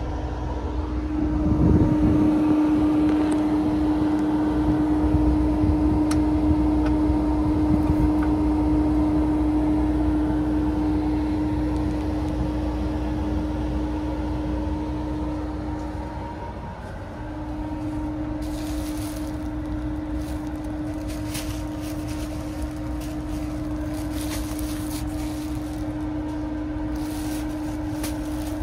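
Steady mechanical hum of a sleeper train's onboard equipment, holding one low tone, dipping briefly about two-thirds of the way through. Light clicks and rustles come in over the second half.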